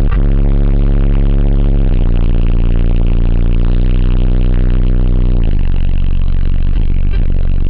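Two large Sundown Audio subwoofers in a car's competition sound system playing deep bass very loudly, heard inside the cabin. The bass notes hold steady, then shift to a new pitch about five and a half seconds in.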